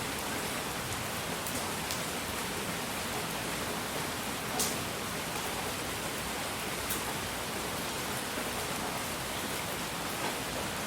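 Steady, even hiss of relaxation noise spread across all pitches, sounding like rain, with a few faint ticks; the clearest comes about four and a half seconds in.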